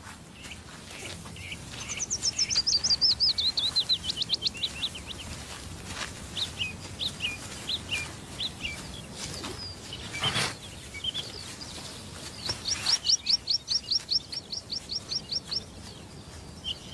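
A songbird singing: a fast trill of about twenty repeated high notes that falls in pitch about two seconds in, then scattered single chirps, then another fast run of repeated notes that holds its pitch. There is a single brief knock about ten seconds in.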